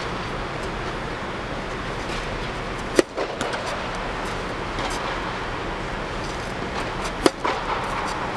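Tennis racket striking a ball twice, sharp cracks about four seconds apart, over a steady background rush.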